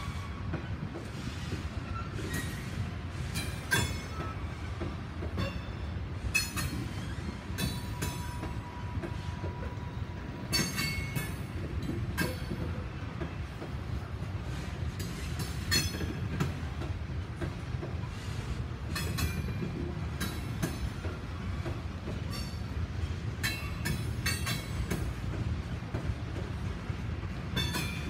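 Norfolk Southern freight train of covered hopper cars rolling past: a steady low rumble of wheels on rail, broken by irregular clicks and clanks. A thin wheel squeal is held for about two seconds some eight seconds in.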